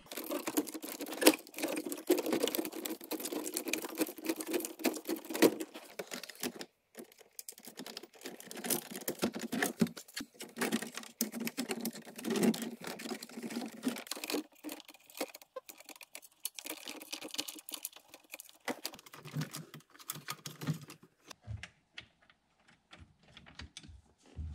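Dense clicking and rattling of hand tools and loose dashboard parts being handled as the radio and heater ductwork are worked loose, with a short pause partway through and sparser clicks near the end.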